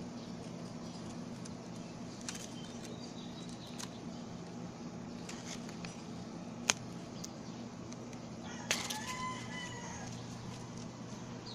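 Background with a steady low hum and scattered faint clicks, a sharp click about seven seconds in, and a brief high squeak about two seconds later.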